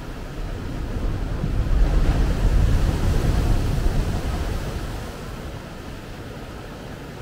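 Ocean surf: a wave rolls in and crashes against the shore rocks. It builds about a second in, is loudest around two to four seconds in, then washes back and fades.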